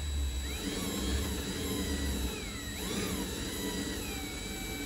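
Cordless drill turning the drive of a JX drill-powered trailer jack, its whine rising and falling in pitch several times as the motor speeds up and slows. A low hum under it stops a little over two seconds in.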